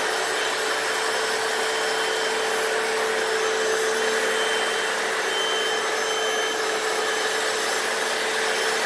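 Hoover FloorMate hard-floor washer running steadily, its suction motor drawing up the sprayed cleaning solution from the floor. A steady hum tone runs through the motor noise.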